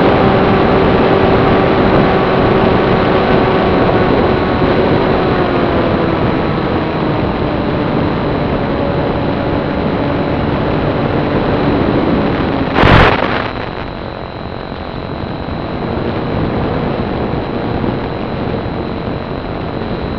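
Brushless electric motor (Turnigy 2822-1450) spinning a 7060 slow-fly propeller on an FPV model plane, heard from onboard as a steady whine over wind rush, its pitch slowly falling. About two-thirds of the way through there is a brief loud burst of noise, after which the motor and wind are quieter.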